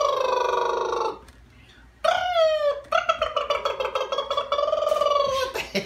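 A woman's voice holding long, wordless, warbling notes, two of them: the first trails off about a second in, the second starts about two seconds in with a downward swoop and wavers until near the end.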